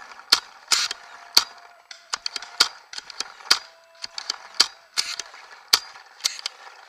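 Paintball markers firing: a running string of sharp, irregularly spaced pops, about one or two a second, some loud and close, others fainter.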